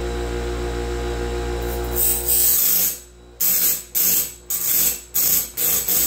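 Electric band-blade sharpener's grinding wheel running with a steady motor hum. From about two seconds in come about five short, harsh grinding passes, as the stone is brought down onto a bandsaw blade tooth to regrind it.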